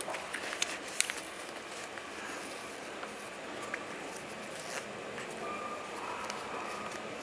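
Shoelaces and canvas sneaker being handled while a kitten paws at them: light rustling with a few sharp clicks, the loudest right at the start and about a second in.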